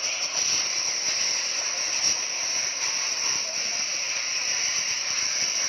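Steady hiss of a fire hose spraying water onto a smouldering corrugated metal roof.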